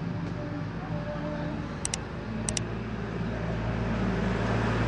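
Motor vehicle engine running nearby, growing louder toward the end over a steady low hum, with two quick pairs of short high ticks about two seconds in.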